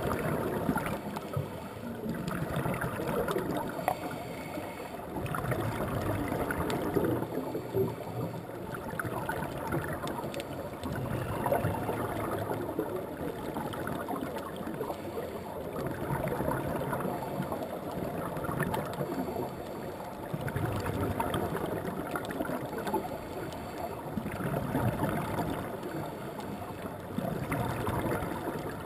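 Underwater breathing of a scuba diver on a regulator: bubbly, gurgling exhalations that swell and fade every few seconds over a steady underwater wash.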